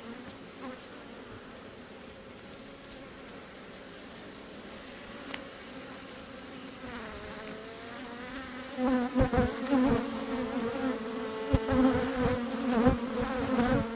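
Honeybees buzzing around an open hive, faint at first and then swelling into a louder, steady buzz about halfway through, with a few dull bumps. The rising buzz is the colony growing irritable from the inspection.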